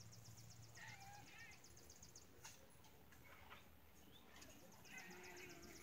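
Faint, steady rapid chirping of insects, with a couple of faint animal calls about a second in and near the end.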